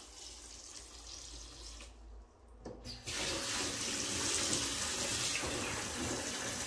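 Bathtub tap running, a thin stream of water pouring and splashing into a plastic baby bath. It is a steady splashing hiss, fainter at first and louder from about three seconds in.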